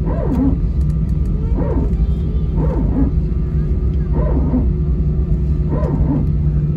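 Airbus A320 cabin noise while taxiing: the jet engines give a steady low rumble and hum. Over it, a short voice-like cry that falls in pitch repeats about every one and a half seconds, its source unclear.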